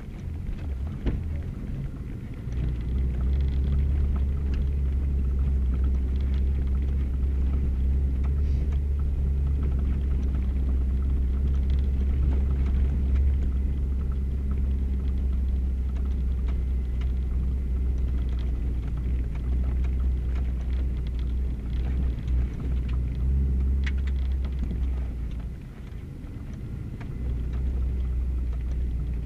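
Subaru driving slowly on a dirt forest road, heard from inside the cabin: a steady low engine and road rumble with a few light ticks. The drone drops off for a moment about three-quarters of the way through, then comes back.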